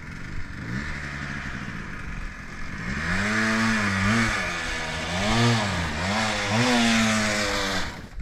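ATV engine working through a muddy trail section: a steady run at first, then from about three seconds in it revs up and down again and again under load. It cuts off abruptly near the end.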